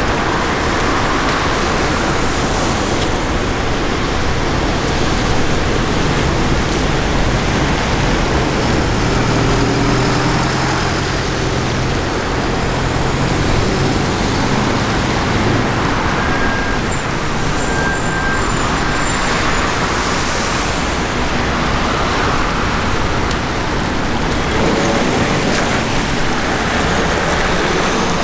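Police cars passing on a wet road in a convoy: steady tyre hiss and traffic noise, with a louder engine hum from a vehicle going by about nine seconds in.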